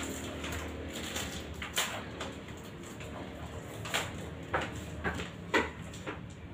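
Large sheets of rolled chart paper rustling as they are unrolled and pressed flat against a wall, with a few sharp crackles of the paper.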